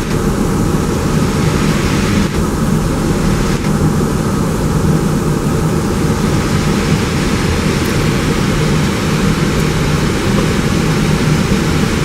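Steady roar inside an Airbus A320 on approach, heard on the flight deck: airflow and engine noise, deepest and strongest at the low end, with no change in pitch.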